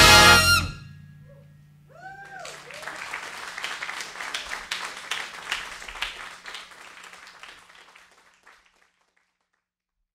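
A jazz big band's final chord cuts off and rings away, then after a short pause the studio audience applauds with a couple of whoops; the applause fades out.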